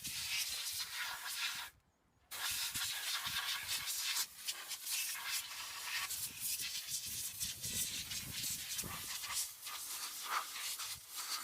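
Compressed air hissing as it blows old brake dust out of a front brake caliper. It stops briefly about two seconds in, then runs on.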